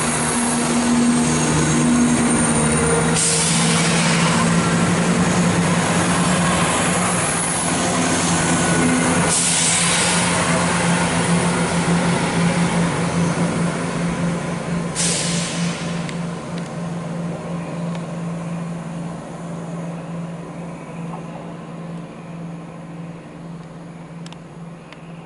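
Class 170 Turbostar diesel multiple unit running away from the platform, its engines giving a steady low drone, with three short hisses. The sound fades as the train draws off into the distance over the second half.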